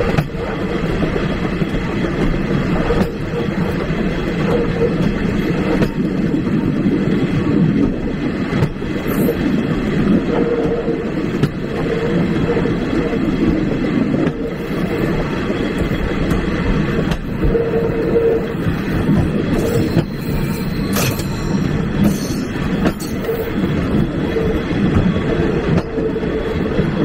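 A steam-hauled passenger train rolling along the track, heard from its last carriage: a steady rumble of wheels on rail with occasional clacks over rail joints.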